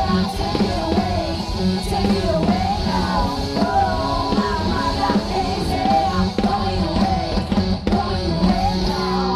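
Live rock band playing: a woman sings lead over electric guitar, bass guitar and a full drum kit.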